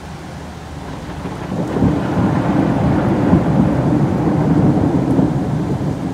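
Heavy rain falling steadily, with a long deep roll of thunder that builds about a second in, stays loud through the middle and eases off near the end.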